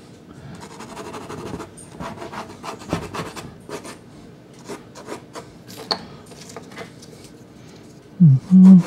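Soft pastel stick rasping over Sennelier La Carte sanded pastel card, in irregular short strokes. Near the end come a few loud, short, low-pitched sounds.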